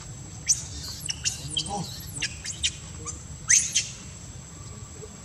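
A quick run of short, high-pitched squeaky chirps, each a sharp up-or-down sweep in pitch, with the loudest pair about three and a half seconds in.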